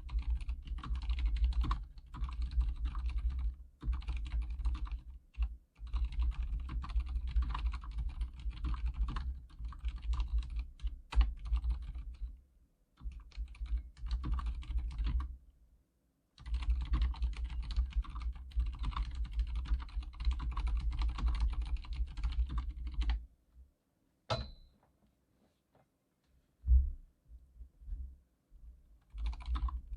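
Typing on an Archon K79 full-size keyboard with silent red linear switches: fast runs of keystrokes with short breaks. Near the end the typing stops for several seconds, with only a couple of single key presses, then picks up again just before the end.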